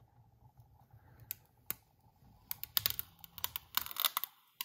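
Clear transfer tape being peeled off a vinyl decal on a stainless water bottle, crackling and crinkling in small scattered clicks that come thicker in the second half.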